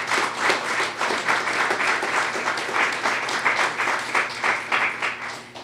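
Audience applauding, many hands clapping, fading out near the end.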